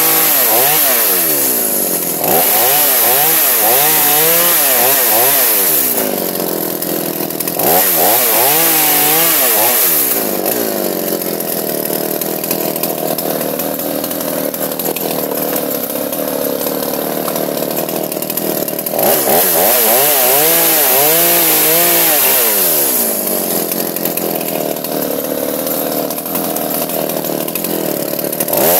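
Two-stroke chainsaw running, its engine pitch repeatedly rising and falling with the throttle, with two long stretches where the speed holds steadier.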